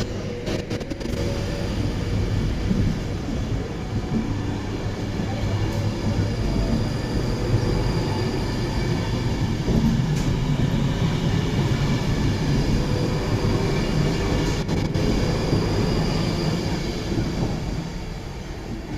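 A train running on the rails: a steady low rumble with faint high whining tones over it, easing off a little near the end.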